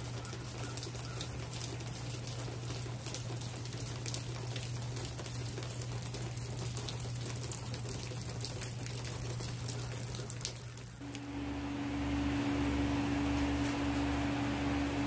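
Light rain pattering, with scattered drop ticks. About eleven seconds in it cuts to a steadier, louder hiss with a low electrical or fan-like hum.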